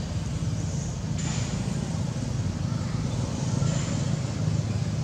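Steady low background rumble with no distinct events standing out.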